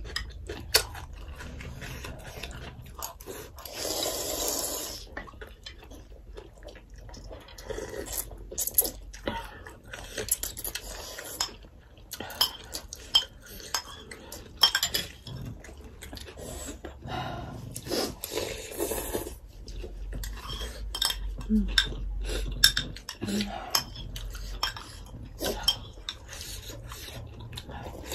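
Metal spoons and forks clinking and scraping against ceramic bowls, many separate clinks, with a few longer slurps of noodle soup in between.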